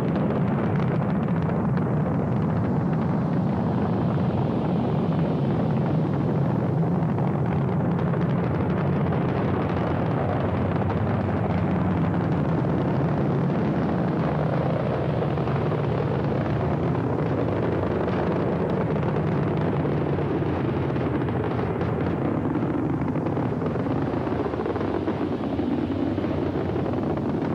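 Saturn V rocket's five F-1 first-stage engines at liftoff and during the climb: a steady, deep rumble of noise that holds with little change throughout.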